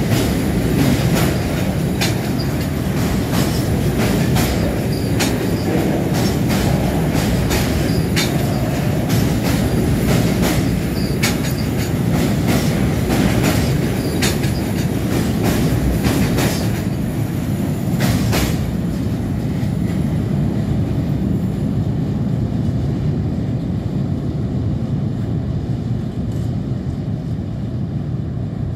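Empty tank wagons of a freight train rolling past on a steel railway bridge, the wheels clicking over rail joints over a loud low rumble. About two-thirds of the way through the clicks stop as the last wagon goes by, and the rumble fades as the train moves away.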